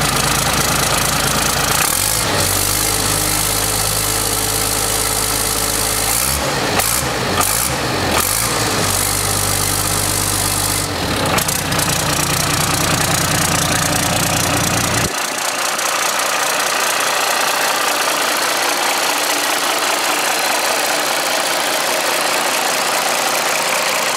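Isuzu 6BD1-T six-cylinder turbo diesel engine running steadily on an engine stand. Its deep low rumble drops away abruptly about fifteen seconds in, leaving the higher engine sound.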